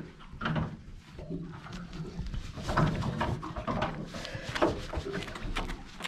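Irregular knocks and rustling as a camera is handled and shifted on its mount inside a boat's cabin.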